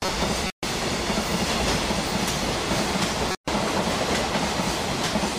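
Container wagons of a freight train passing at speed, with steady loud rail noise. The sound cuts out completely for a split second twice, about half a second in and again just past three seconds: dropouts in the recording caused by a disc-finalising error.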